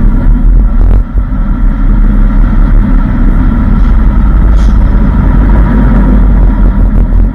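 Large cargo truck's diesel engine running steadily, heard from inside the cab while the truck is positioned on a ferry's car deck.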